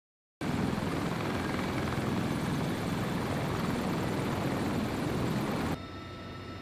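CH-53E Super Stallion heavy-lift helicopter running on the ground, its three turboshaft engines and rotors making a loud, dense, pulsing noise that starts about half a second in. Just before the end it cuts abruptly to a quieter, steadier drone with high steady whines, as heard inside the helicopter's cabin.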